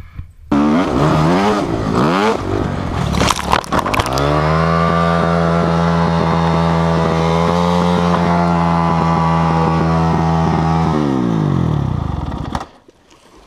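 Dirt bike engine revving up and down, with a clatter of knocks and scrapes around three seconds in as the bike crashes. The engine is then held at steady high revs for about seven seconds before winding down near the end.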